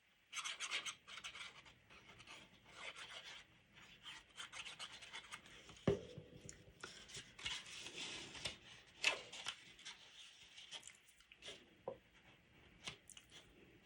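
Hands handling and rubbing stiff paper as a glued corner is pressed into place: a run of irregular dry rustles and scrapes, with one light knock about six seconds in.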